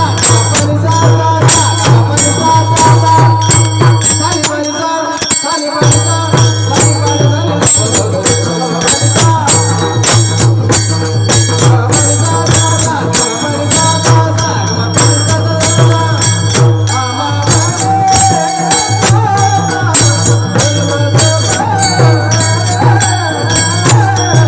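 Pakhawaj (mridang) drumming in a fast, dense run of strokes over a steady deep bass, accompanied by jingling metal percussion.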